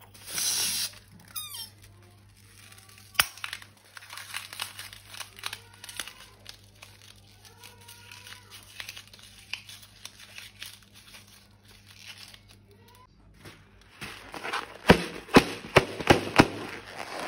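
Crinkling and crackling of slime and plastic being handled, with a short rush of noise at the start and a run of sharp snapping clicks near the end.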